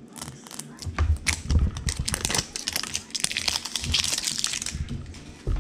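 A plastic toy capsule being handled and pried open by hand: a run of clicks and knocks, then a dense plastic crinkling in the second half.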